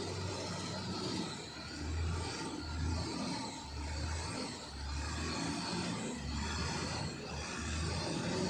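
Motor grader's diesel engine running under work, a low hum that swells and fades every second or so.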